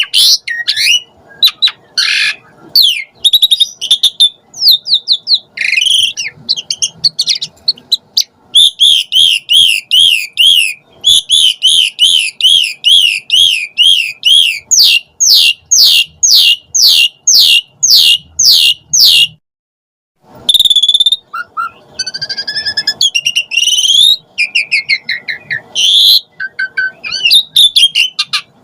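Pied starling (jalak suren) singing: a loud, varied string of whistled notes and chatters, with fast runs of repeated notes and a brief break about two-thirds of the way through.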